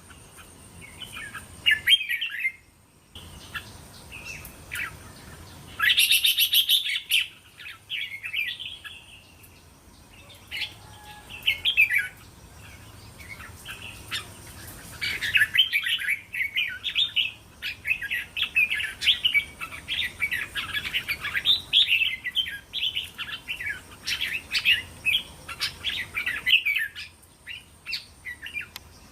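Red-whiskered bulbuls singing short, bright phrases and chattering. The calls come in separate bursts at first, then in a dense, rapid run through most of the second half.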